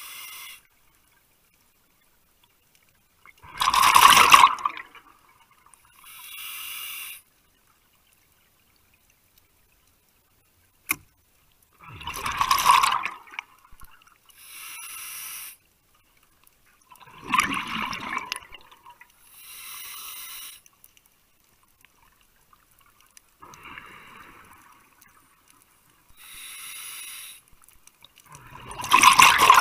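Scuba diver breathing through a regulator: quieter hissing inhalations alternate with four louder bubbling exhalations, spaced several seconds apart. A single sharp click comes near the middle.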